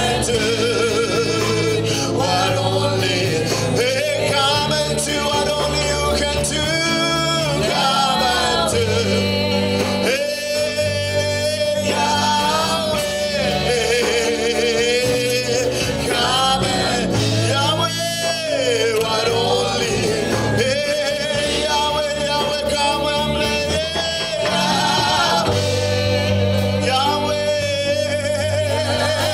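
Live gospel worship song: a male lead singer sings long, held notes that waver in pitch, over a steady accompaniment of sustained chords.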